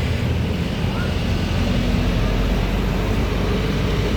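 Bus engine running close by, a steady low rumble with road noise and no horn.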